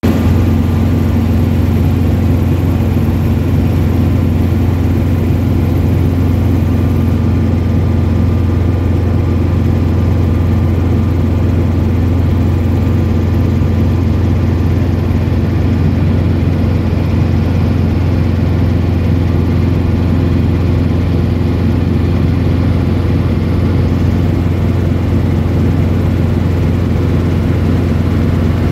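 Training helicopter in cruise flight, heard from inside the cabin: engine and rotor drone with a strong, steady low hum.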